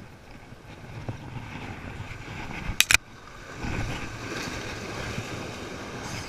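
Small waves washing against the rocks, with wind on the microphone. A pair of sharp clicks comes about three seconds in.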